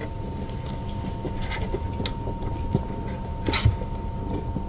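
Scattered light taps and clatters as kittens play in and around a blue plastic tub, with the loudest clatter about three and a half seconds in. Underneath runs a steady low rumble and a faint constant high whine.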